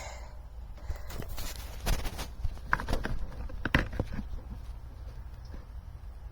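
Handling noise of copper tubing being fitted into a floor cleaner's plastic water-hose fitting: scattered light clicks and knocks, the sharpest about two, three and four seconds in, over a low steady hum.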